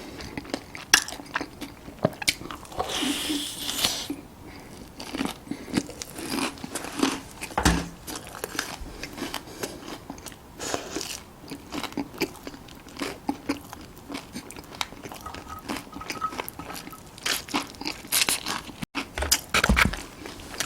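Close-miked eating: a run of crunchy bites and chewing, many short crunches one after another.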